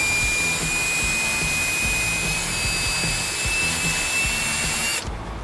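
Electric drill with a 1/8 inch bit drilling a small hole. Its motor whine holds high and steady, climbs a little in pitch, then cuts off about five seconds in.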